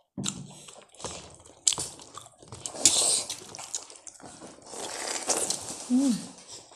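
Close-miked eating sounds of a person eating rice and curry by hand: wet chewing and lip smacks in quick irregular clicks. A brief hum is heard about six seconds in.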